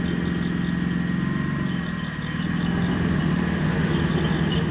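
Off-road 4x4 engine running at low revs while crawling through mud; the revs rise a little about two seconds in.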